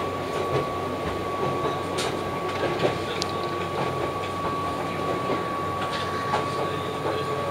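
Cabin noise inside an Oigawa Railway 3000 series (ex-Keihan 3000) electric train under way: a steady rumble of the wheels on the track with a thin steady high tone and a few sharp clicks over the rail joints.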